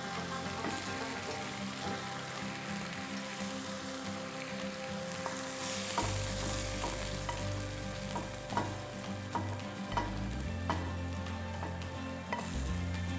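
Sizzling of seared venison pieces as they are scraped from a hot frying pan into a pan of simmering stew. From about halfway through, a utensil clicks and scrapes against the metal pans, then stirs the stew.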